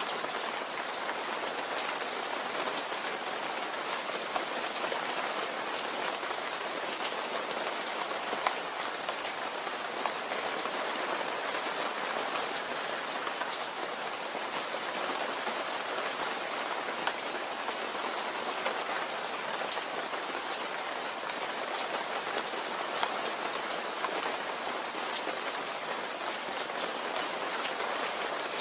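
Steady rain falling: an even hiss with a few sharper drop ticks now and then.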